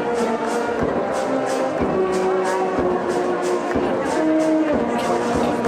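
Brass band music: brass instruments playing held notes over a quick, steady percussion beat.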